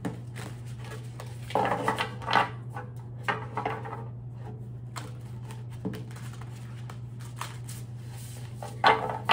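Tarot cards being handled on a table: scattered rustles and light taps over a steady low hum.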